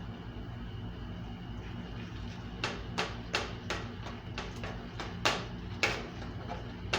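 A steady low hum, then from a few seconds in a run of about nine irregular sharp taps and knocks, as of kitchen utensils striking a pan or dish.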